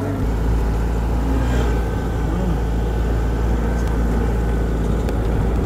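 Car driving along a mountain road, heard from inside the cabin: a steady low engine and road rumble.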